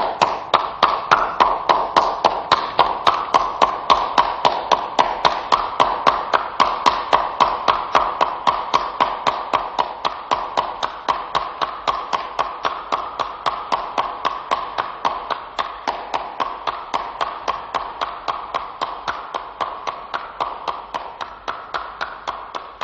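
One person clapping hands alone in a steady rhythm of roughly three to four claps a second, gradually getting quieter toward the end.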